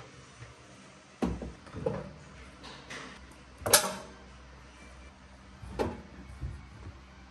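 About five separate household knocks and clunks, the sharpest about halfway through.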